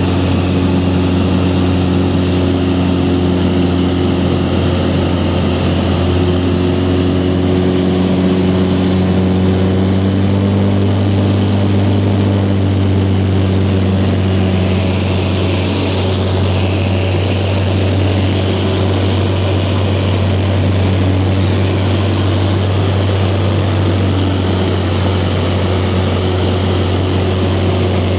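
Light aircraft's propeller engine running steadily in flight, heard inside the cabin as a constant low drone with an even rush of air.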